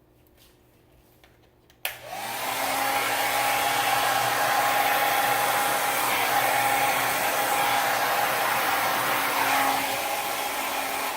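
Hand-held hair dryer switching on about two seconds in, its motor whine rising as it comes up to speed, then running steadily with a rush of air. It eases slightly near the end.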